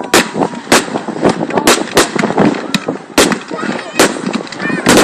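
Fireworks going off in quick, irregular succession: a string of sharp bangs, about two a second, from aerial shells and multi-shot firework launches.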